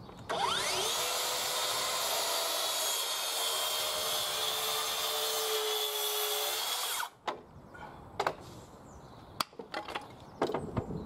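Track saw crosscutting a wide jointed softwood plank on its guide rail to square the end: the motor whines up to speed, holds a steady note through the cut for about seven seconds, then cuts off suddenly. A few sharp knocks follow.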